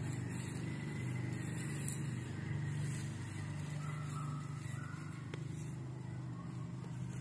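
A steady low mechanical hum, like a motor or engine running.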